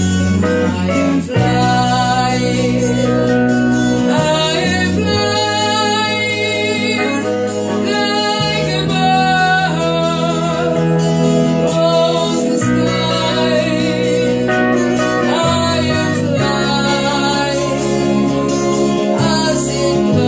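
A song with a singing voice over guitar and a steady bass.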